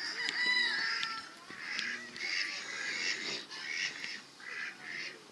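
Pigs snoring in quick, irregular bursts.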